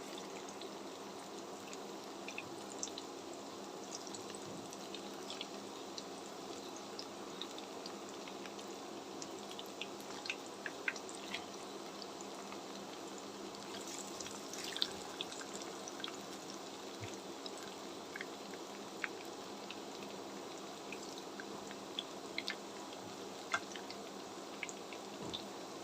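Noodle balls deep-frying in hot oil in a karahi: a steady sizzle with scattered small pops and crackles.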